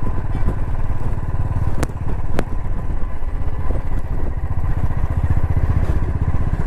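Motorcycle engine running steadily while riding, picked up by a mic mounted on the bike. Two short clicks come about two seconds in.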